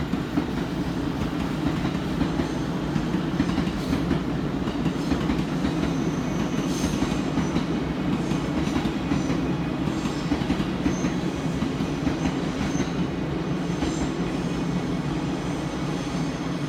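Electric train running along the track with a steady low rumble, and a few brief, faint high wheel squeals in the middle.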